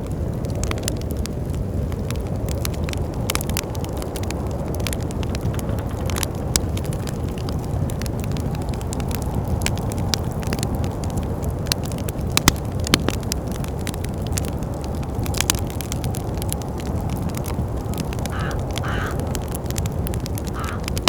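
Wood fire crackling with scattered sharp pops over a steady low rumble of wind. Near the end come a few brief squeaky sounds.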